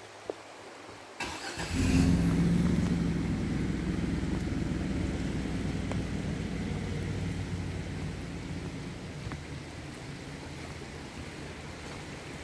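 A vehicle engine starts about a second and a half in, then runs steadily and slowly gets quieter.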